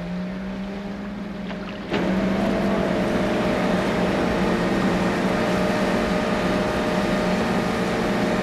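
Steady low engine drone of a large ship under way. About two seconds in it jumps abruptly to a louder, denser mechanical hum with a steady tone in it, the ship's machinery as the small yellow submarine is hoisted aboard.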